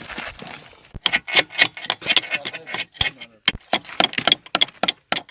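A fast, irregular run of sharp clicks and knocks, several a second, starting about a second in over a soft hiss.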